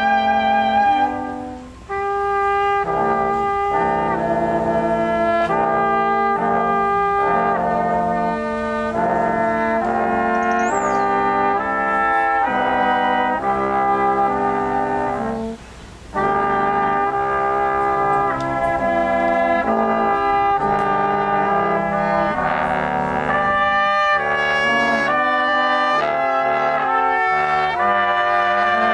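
Brass quintet playing a tune live, several brass voices in harmony with held, stepping notes. The playing breaks off briefly twice between phrases, about two seconds in and about halfway through.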